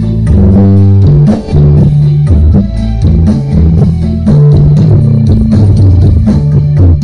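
Loud music with a heavy, sustained bass line and a drum beat.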